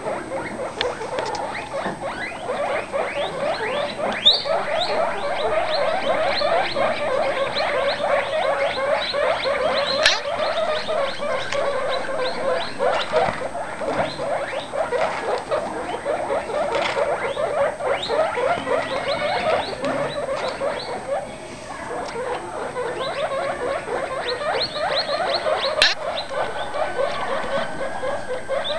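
Baby guinea pigs squeaking, a rapid unbroken stream of short high calls from several pups at once, with a brief lull about three-quarters of the way through and a few sharp clicks.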